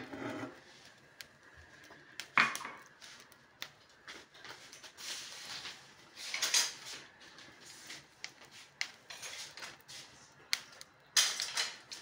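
Kitchen handling sounds: scattered knocks and clatters of a metal cooking pan and utensils, with bursts of rustling noise. The loudest knock comes about two and a half seconds in.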